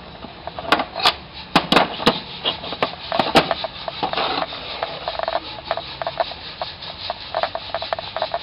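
Steel hand tools handled in a wooden tool box: sharp clicks and knocks of metal on wood, densest in the first few seconds, with scraping and rubbing between them.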